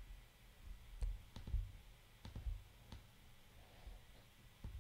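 About five faint, sharp clicks, spaced unevenly, from clicking to select and drag anchor points on a computer.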